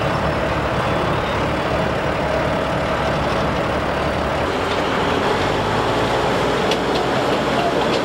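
Heavy construction machinery engine running steadily under load, with a continuous mechanical drone.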